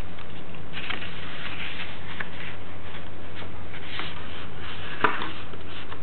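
Sheet of paper being handled and folded by hand on a table: soft rustles and taps as it is creased, with a sharper crackle about five seconds in, over a steady electrical hum and hiss.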